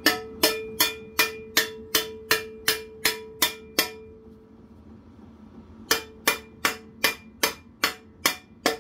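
Hammer striking a curved piece of steel cut from an old air compressor tank, in steady blows about three a second, each with a metallic ring. The steel is being knocked down to close a gap between two welded-together pieces. The blows stop for about two seconds midway, then resume at the same pace.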